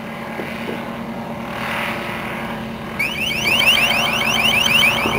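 Helicopter UAV engine and rotor running with a steady hum. About three seconds in, the LRAD 300X speaker on it begins sounding a warbling alert tone, a rapid string of rising chirps about seven a second, as an attention signal ahead of its next broadcast message.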